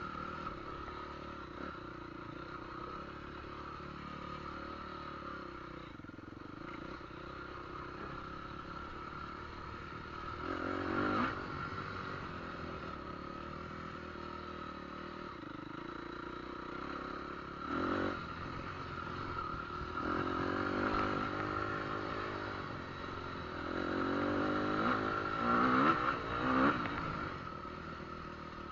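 An engine running steadily, its pitch swelling and falling in several revs, loudest near the end.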